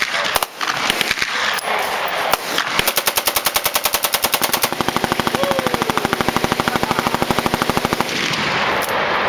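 M4/M16-type AR rifle firing on full auto: a few separate shots, then a continuous burst of about five seconds of rapid, evenly spaced shots that stops abruptly as the magazine runs empty.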